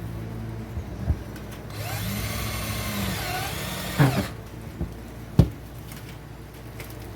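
Power drill driving a screw to hold down a roof vent fan, running for about two and a half seconds with its pitch rising and then falling, followed by a few sharp knocks.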